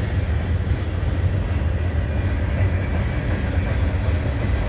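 Freight train rolling past close by: a steady rumble of steel wheels on the rails, with a few brief faint high-pitched chirps.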